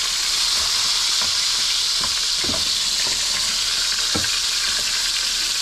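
Red snapper frying in oil in a pan: a steady hissing sizzle, with a few light knocks.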